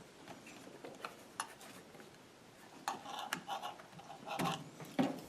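Scattered light clicks and taps of hand tools against a laptop's plastic case, a handful spread a second or so apart.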